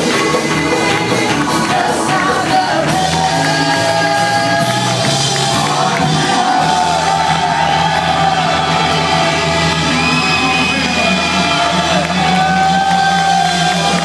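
Live church worship band with keyboard playing, long held sung notes over a steady bass line, with the congregation singing and shouting along.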